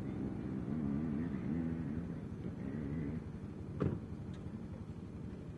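An engine running, its pitch wavering quickly up and down for about three seconds, then a single sharp knock a little past the middle.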